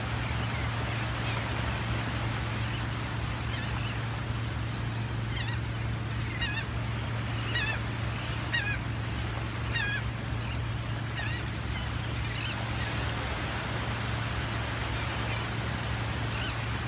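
Seabirds calling, a series of about nine hoarse calls roughly one a second through the middle of the stretch. They ring out over a steady wash of small surf waves and a constant low rumble.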